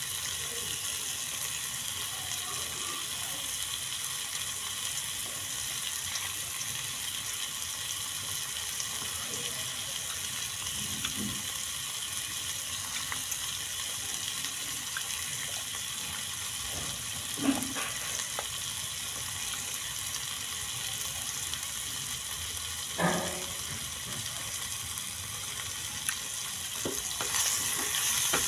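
Chicken pieces sizzling in a frying pan, a steady hiss throughout, with two short knocks in the middle. Near the end a metal spoon stirs the chicken around the pan.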